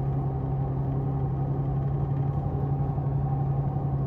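Tour bus engine and road noise heard from inside the cabin: a steady low drone with a constant hum.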